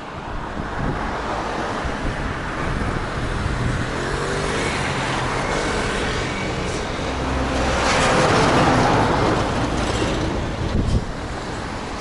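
Road traffic close by: a motor vehicle's engine hum, then a vehicle passing that swells to its loudest about eight to nine seconds in and fades away.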